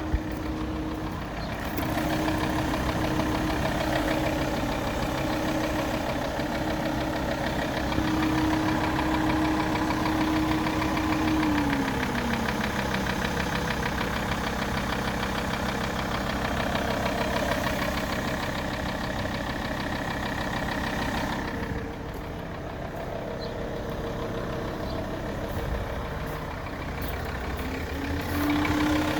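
Alfa Romeo 159's 2.4 JTDm five-cylinder diesel engine idling with a knocking noise. A steady tone in the engine sound glides lower about twelve seconds in and rises back near the end.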